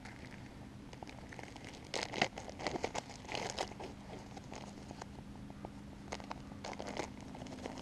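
Plastic zip-lock bag of instant mashed potato flakes crinkling as it is handled, in clusters of crackles from about two to four seconds in and again near the end, over a faint steady hum.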